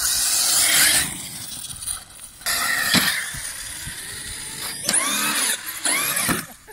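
RC monster truck's electric motor and drivetrain whining at full throttle, with a sharp knock about three seconds in. Near the end come two quick revs that rise and fall in pitch: the throttle blipped while the truck is in the air off a jump.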